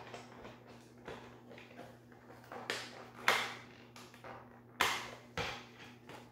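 Hands handling a cardboard model-horse box while working loose the plastic ties that hold the model to the insert. Several short scrapes and rustles, the sharpest a little past three seconds and near five seconds.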